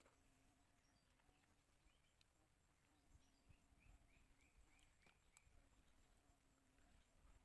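Near silence: faint room tone with a low steady hum, and a short row of faint high chirps about halfway through.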